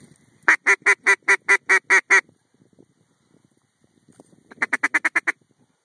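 Mallard duck call blown as a run of nine evenly spaced, loud quacks at about five a second. Near the end comes a quicker, softer run of quacks. These are a hunter's calls to ducks flying overhead.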